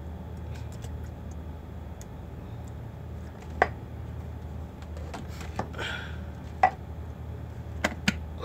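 Scattered sharp clicks and knocks of a white plastic electric kettle and its lid being handled, over a low steady hum.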